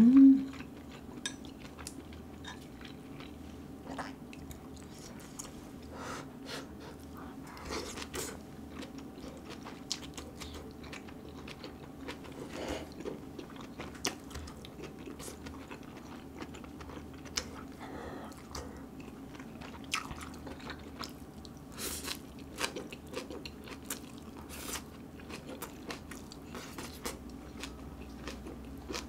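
Close-miked mouth sounds of someone chewing and biting grilled seasoned duck ribs and chives: irregular wet clicks and crunches, over a faint steady hum.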